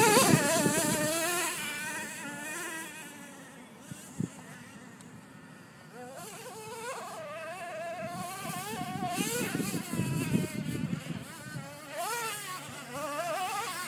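Radio-controlled truck's motor running with a high buzzing whine whose pitch rises and falls with the throttle. It fades as the truck drives away, then grows louder again from about halfway, with one short click around four seconds in.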